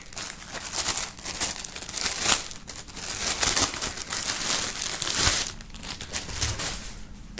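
Thin clear plastic bag crinkling and rustling in the hands as a folded T-shirt is pulled out of it. The crinkling dies down about three quarters of the way through.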